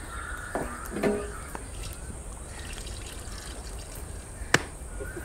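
Forest ambience with faint whistled bird calls, a brief lower sound about a second in, and a single sharp click about four and a half seconds in.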